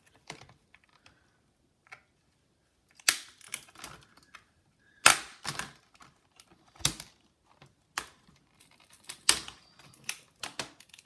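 Sharp plastic clicks and snaps as a Dell Inspiron 1545 laptop's clipped-in display bezel is pried free, with lighter handling clicks between. The loudest snaps come about three and five seconds in.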